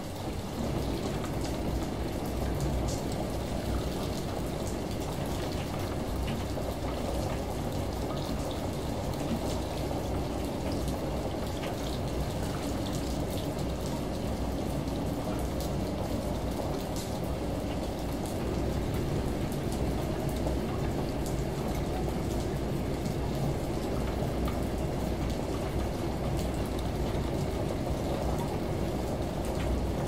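Layered indoor ambience: the low steady drone of a washing machine running under the hiss of a shower and rain falling outside, with scattered faint drop ticks.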